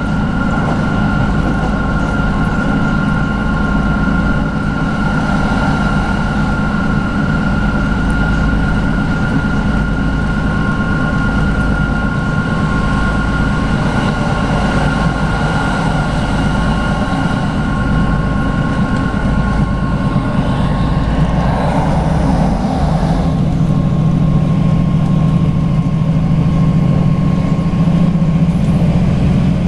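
Inside a Class 156 diesel multiple unit running at speed: a steady rumble of wheels and underfloor diesel engine with a constant high whine. About three-quarters of the way through there is a brief rush of noise, and then the low engine hum grows louder.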